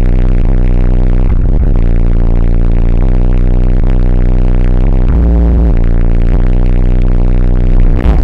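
Bass-heavy electronic music played very loud through a car stereo of six Tantric Sounds HD 15-inch subwoofers on three Crescendo BC3500D amplifiers, heard from inside the cabin. Deep bass notes are held about a second at a time and step between pitches, with the loudness pinned steady.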